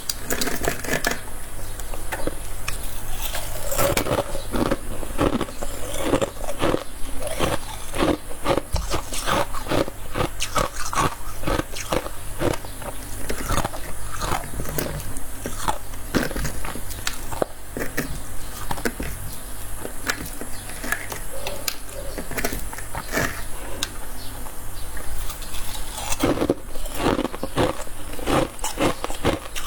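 Close-miked biting and chewing of fluffy freezer frost: a dense, uneven run of soft crunches with no break, over a faint steady low hum.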